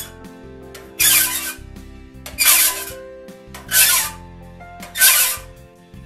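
Flat file rasping across the steel raker teeth of a one-man crosscut saw, riding on the hardened plate of a raker depth gauge to dress each raker down to depth. Four evenly spaced strokes.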